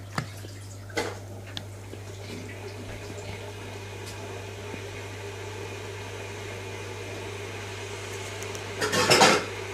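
Steady low hum under a few light clicks of a small plastic container being opened and handled, with a louder burst of handling noise near the end.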